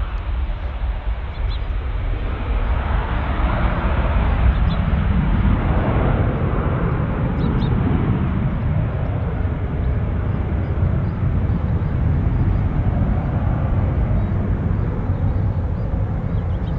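Bombardier Global 6000 business jet's twin Rolls-Royce BR710 turbofans at take-off power as the jet lifts off and climbs away: a loud, deep rumbling jet noise that swells a few seconds in and stays strong.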